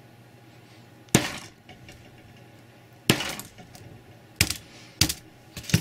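Sledgehammer blows on a Samsung Galaxy S2 smartphone: five sharp strikes at uneven intervals, one every second or so, the second with a brief ringing tail.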